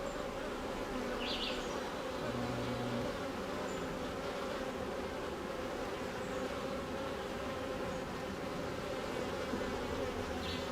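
Honeybees buzzing in a dense, steady hum around an opened hive, the colony agitated and swarming the beekeeper. A lower, louder buzz stands out briefly about two seconds in.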